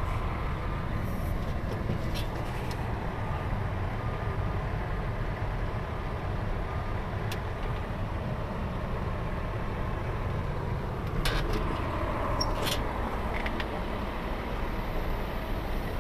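Steady low rumble of vehicles, with a few faint short clicks.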